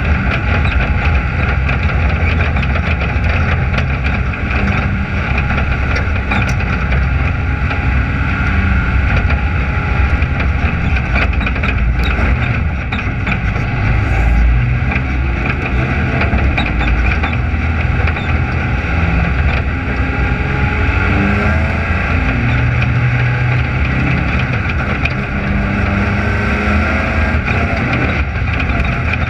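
Dirt-track race car's engine running steadily, heard up close from the car itself, with small rises and falls in pitch.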